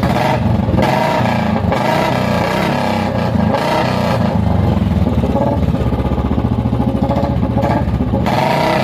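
Royal Enfield Bullet single-cylinder motorcycle engine running and being revved in short throttle blips several times for a sound check, after a brief warm-up from cold.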